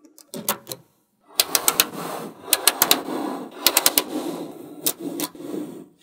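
Small neodymium magnet balls clicking and rattling against each other and on the tabletop as hands lay and press rows of them into place. A few clicks, a brief pause, then rapid clusters of sharp clicks over a soft rustle.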